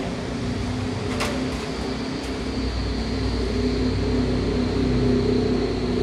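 Steady mechanical hum of a running machine, with a faint high whine above it, and a single sharp click about a second in.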